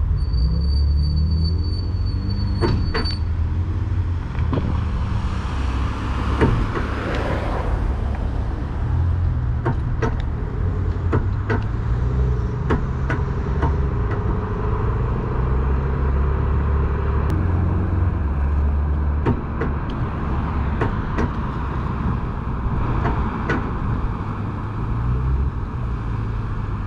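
Car towing another car on a strap at low speed: a low engine drone that rises and falls with road noise, and scattered sharp clicks and knocks throughout.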